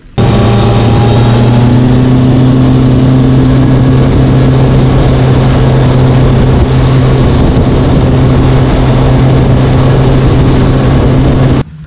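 Bass boat's outboard motor running steadily at speed, with wind and water rushing past. The sound begins and ends abruptly.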